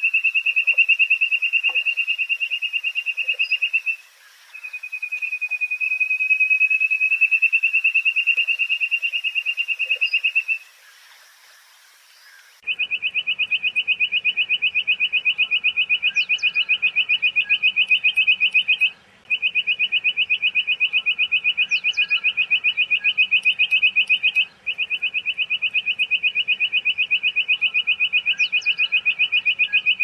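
Jungle bush quail calling: a high, rapid, even trill held for several seconds at a time, broken by brief pauses and by one longer pause near the middle.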